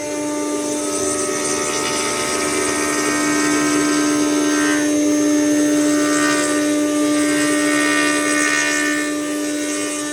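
Four-axis CNC router running a wood-carving job: the spindle gives a steady whine, with cutting noise over it that grows a little louder midway.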